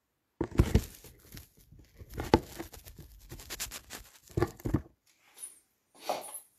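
Irregular crackling and rustling of cloth rubbing and the phone being handled against the microphone, starting about half a second in and stopping about five seconds in.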